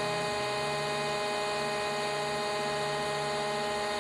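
SIP Hydroptic 8 jig borer running with a steady multi-tone mechanical hum, the low part of it shifting slightly while the table is inched to the next cylinder position.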